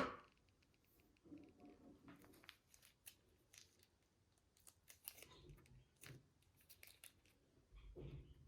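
Slime being mixed and handled: faint, scattered sticky clicks and soft squishes, with a louder one fading out at the very start and a slightly fuller squish near the end.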